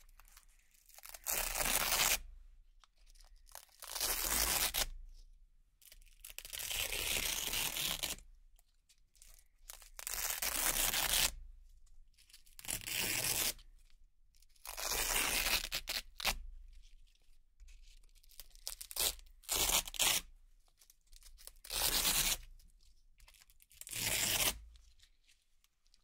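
Velcro strips being ripped apart one after another: about nine crisp, rasping tears, each lasting about a second, with short pauses between them.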